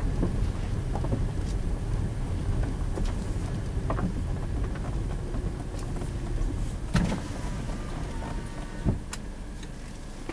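Car driving slowly on a dirt road, heard from inside the cabin: a low rumble of engine and tyres with scattered knocks and rattles from the rough surface. The rumble drops away after about seven seconds.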